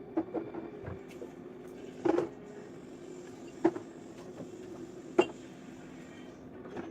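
Items being handled and set down while a fridge is cleaned and organised: four sharp knocks and clunks about a second and a half apart, over a steady low hum.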